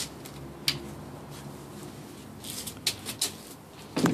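A few light knocks and scuffs from handling a carved wooden block, with a louder knock near the end as it is set down on a wooden workbench.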